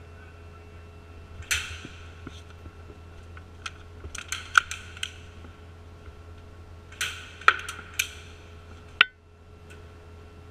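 Scattered sharp cracks and clicks of an airsoft firefight echoing in a large hall, coming in irregular clusters with a single sharp crack near the end, over a steady low hum.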